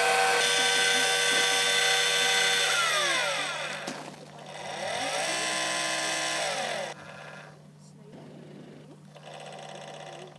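Electric drive motors of a 280 mm Celestron GoTo telescope mount slewing, a high multi-tone whine. About three seconds in the pitch falls as the motors slow; between about four and seven seconds they speed up and slow again, then shorter, quieter runs follow as the mount makes fine corrections.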